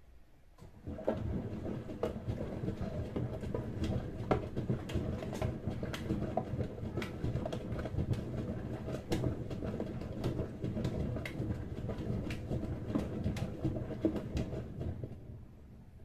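Brandt 422 washing machine drum turning with a load of laundry: a steady rumble with many small knocks and clicks. It starts about a second in and stops shortly before the end, like one tumbling phase of a wash cycle.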